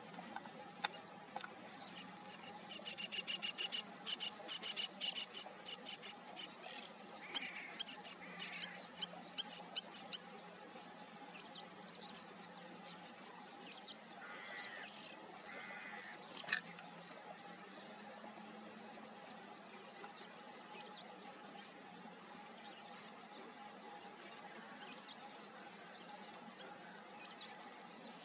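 Small birds chirping in the background: short high calls scattered throughout, with a rapid trill from about three to five seconds in. A faint steady hum sits underneath.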